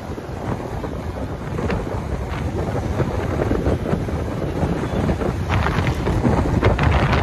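Wind buffeting the microphone of a motorcycle moving at highway speed, a continuous rushing noise that grows louder towards the end.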